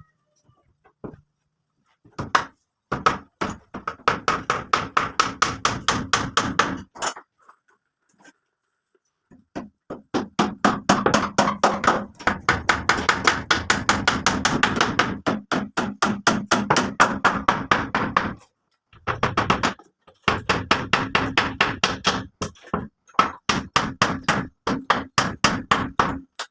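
A hand tool striking rapidly and repeatedly, about five blows a second, in three long runs broken by short pauses.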